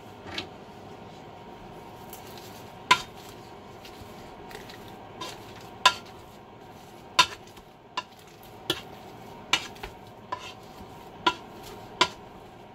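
A kitchen utensil knocking against a pot of drained boiled potatoes as they are mashed: a dozen or so sharp clinks, a second or more apart at first and coming faster in the second half.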